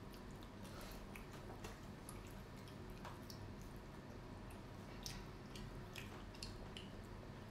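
Faint chewing of breaded mozzarella dippers, with soft mouth clicks and smacks at scattered moments.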